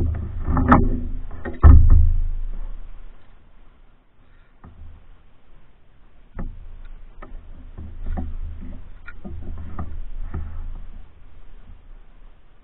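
Pack canoe being paddled: paddle strokes with knocks and hollow thuds against the lightweight hull and water moving along it. The heaviest thuds fall in the first two seconds, then lighter clicks and swishes follow.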